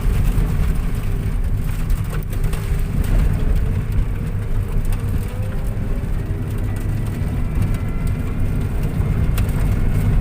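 Car driving along a freshly graded road: a steady low rumble of engine and tyres.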